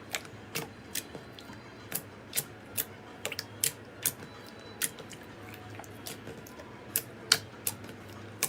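Slime being worked, making irregular sharp clicks and pops, one to three a second, over a faint low hum.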